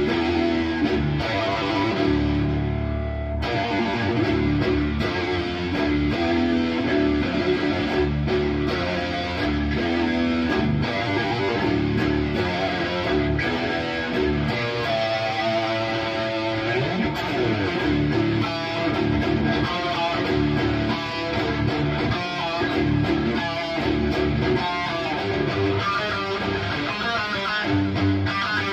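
High-gain electric guitar through a Bogner Uberschall preamp, played in heavy metal riffs: fast palm-muted chugging mixed with single notes, with a held low chord about two seconds in.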